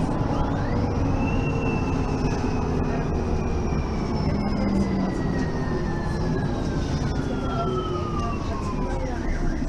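Mercedes-Benz Citaro facelift city bus running, with steady low engine and road rumble. Over it a whine rises sharply about half a second in, then falls slowly for about eight seconds and drops away near the end.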